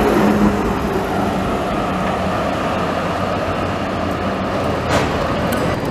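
Basel tram running past close by: the steady running noise of steel wheels on rails, with a sharp click about five seconds in.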